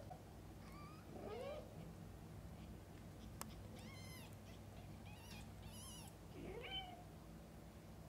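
Newborn kittens giving several short, faint, high-pitched mews while nursing and being licked, some calls rising in pitch, the loudest just after the start and near the end. A single sharp click sounds about midway.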